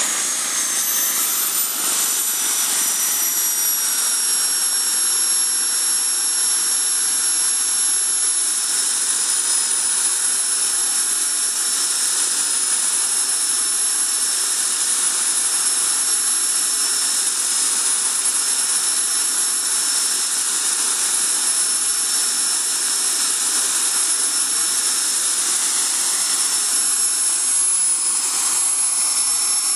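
JetCat PHT2 model helicopter turbine running on the ground after landing: its high whine falls in pitch over the first few seconds as it slows, then holds steady over a constant rushing hiss.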